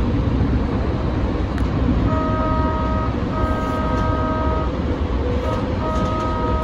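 Siemens light-rail trolley's horn sounding a chord of several pitches in long blasts from about two seconds in, two long ones, a short toot and another long one, over the steady rumble of the train running on the rails.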